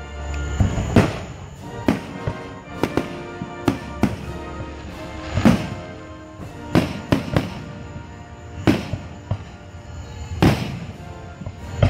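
Aerial fireworks going off in a string of sharp bangs at irregular intervals, the loudest about five and a half and ten and a half seconds in, with music playing underneath.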